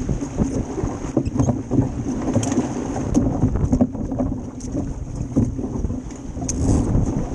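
Wind buffeting a stern-mounted GoPro action camera and water rushing along the hull of a Club 420 sailing dinghy under way, with scattered knocks and clicks as the crew shift across the boat.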